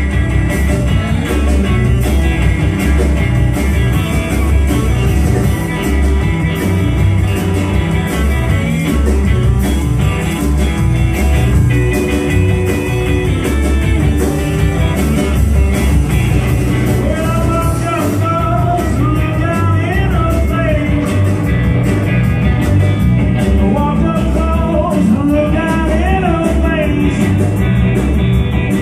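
Blues-rock band playing live: electric guitars and drums, loud and steady, with a lead part that bends in pitch coming in about halfway through.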